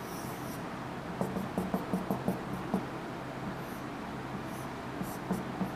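Marker pen drawing on a whiteboard: short squeaks of pen strokes, with a run of quick short strokes tapping out about one to three seconds in.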